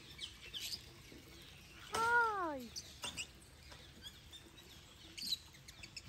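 Small birds chirping and twittering in an aviary, short high calls scattered throughout. About two seconds in comes one louder, drawn-out cry that falls in pitch.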